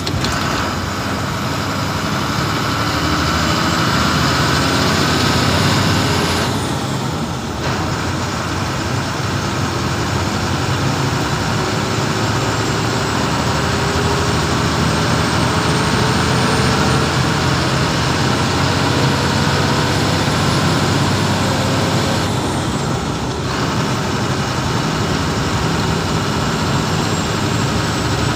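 Bus engine and road noise heard from inside the front cabin, running steadily at highway speed, with the engine note slowly rising partway through.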